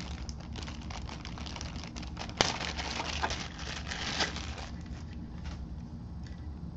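Plastic packaging crinkling and rustling as items are handled, in a dense run of small crackles with one sharp click about two and a half seconds in, thinning out near the end.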